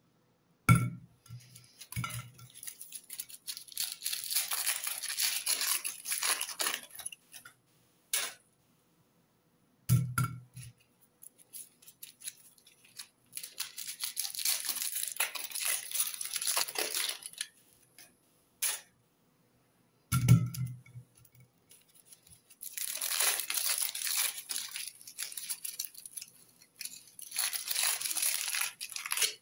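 Aluminium foil crinkling and tearing as it is peeled off balls by hand, in three long bouts. Each bout opens with a soft knock.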